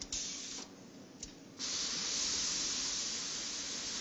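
Air hissing through a fluidized bed of low-density polyethylene powder as hot steel handles are dipped in it for coating. A short hiss at the very start and a click a little past a second in, then a steady, louder hiss from about a second and a half in.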